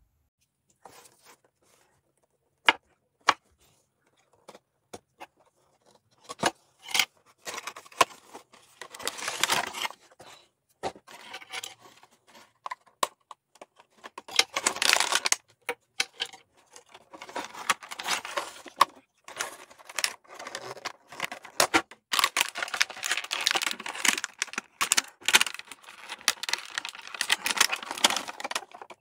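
Toy packaging being opened by hand: a few sharp clicks and snaps at first, then long stretches of clear plastic tray crinkling and rustling as a toy figure is worked out of it.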